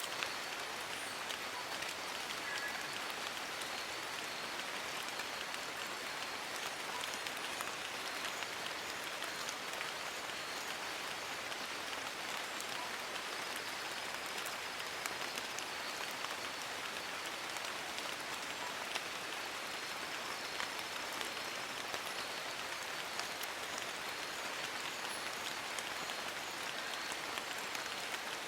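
Steady rain falling on forest leaves: an even hiss made of many small drop ticks, with no change in strength.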